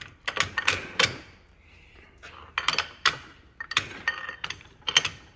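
Sharp metallic knocks and clinks, several a second with a short pause about a second and a half in, as the crown wheel and carrier of a 1948 Holden FX differential are worked loose in the housing.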